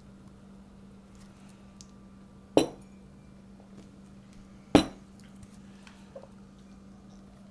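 Two sharp clinks of hard objects knocking together, about two seconds apart, over a faint steady hum.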